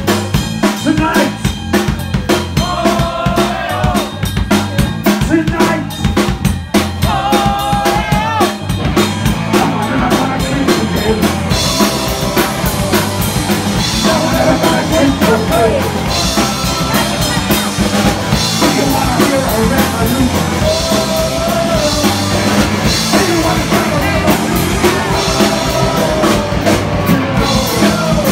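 Live punk band playing loud: drum kit, electric guitars and bass under a sung vocal line. Cymbals come in strongly partway through.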